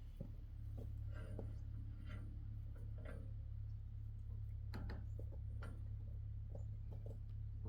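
Muffled low rumble with scattered faint knocks and clicks, the strongest about five seconds in, picked up by a camera lying face down in the dirt.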